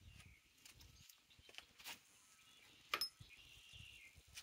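Near silence with a few faint clicks and one sharp tap about three seconds in. The impact wrench is not running.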